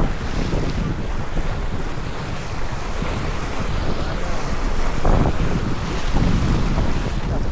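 Wind buffeting the microphone over the rush of water along a sailboat's hull while under way, briefly louder about five seconds in.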